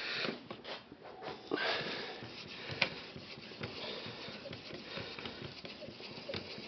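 600-grit aluminum oxide water stone of an Edge Pro sharpener being stroked along the edge of a ZDP-189 steel knife blade: repeated scraping strokes, with a sharp click a little under three seconds in.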